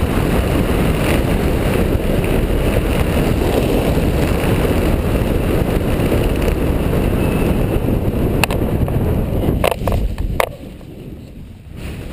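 Airflow rushing over the microphone as a parachute canopy glides down to land, a loud steady rush. About ten seconds in, a few sharp knocks come and the wind noise cuts off abruptly at touchdown.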